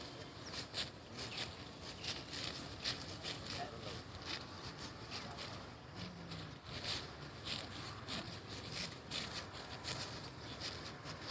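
Rice stalks being cut and gathered by hand: a run of short, crisp rustling snaps, roughly one or two a second, over a steady background hiss.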